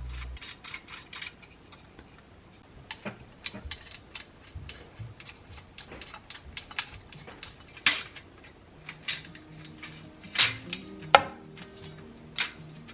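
Light clicks, clinks and taps of hard household items being handled and set down, with a few sharper knocks in the second half.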